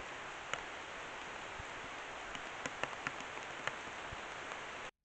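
Steady hiss of forest background picked up by a trail camera's microphone, with a few scattered faint ticks; the sound cuts off abruptly near the end.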